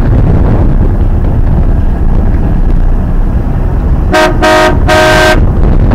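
Wind buffeting the microphone, then about four seconds in a boat horn sounds three quick blasts, the third a little longer.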